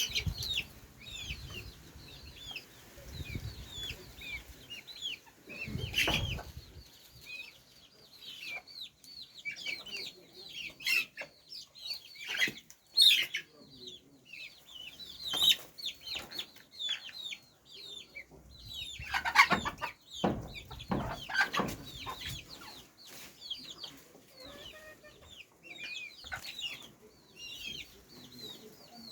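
Chickens clucking, with many short, high, falling peeps running throughout and several louder calls standing out, the loudest about 19 to 21 seconds in.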